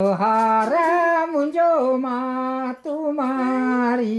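An elderly man singing a Pahadi folk song unaccompanied, in long held notes that slide from one pitch to the next.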